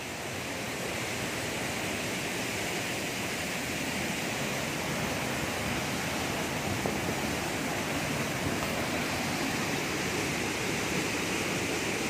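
Waterfall pouring down a rock face into a shallow pool: a steady rush of water, growing a little louder over the first couple of seconds.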